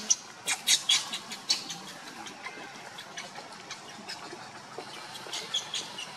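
Newborn pig-tailed macaque crying in short, high-pitched squeaks, a quick run of them in the first second and a half and a few more near the end.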